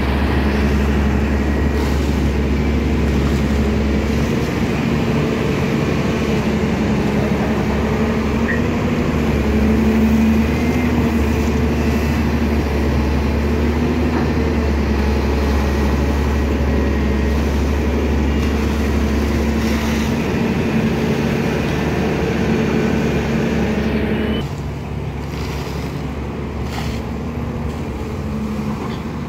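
Diesel engine of a CAT 320 hydraulic excavator running steadily at working revs while it digs. About 24 seconds in the sound drops in level and changes character.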